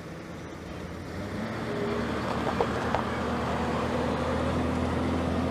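Car engine pulling away and gaining speed, its hum growing louder and rising slightly in pitch, heard from inside the vehicle. Two short clicks about halfway through.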